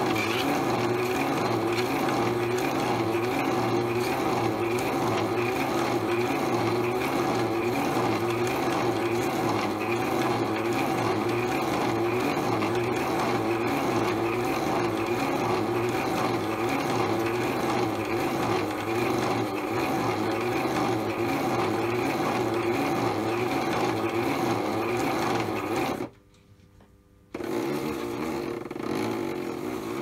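Modified toy washing machine running a wash, its small electric motor whirring steadily as it turns the drum with water and a single item inside, with a regular rhythmic churn. About 26 seconds in the motor stops for a little over a second, then starts again.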